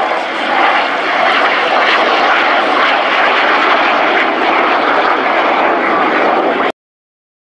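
BAC Jet Provost T.5 jet trainer flying overhead, the steady, loud noise of its Rolls-Royce Viper turbojet, which cuts off abruptly near the end.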